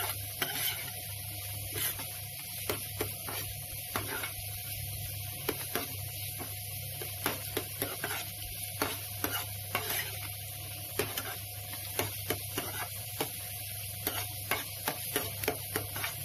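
Chopped onions sizzling in hot mustard oil in a pan, while a metal spatula stirs and scrapes them, making frequent irregular clicks against the pan. A steady low hum runs beneath.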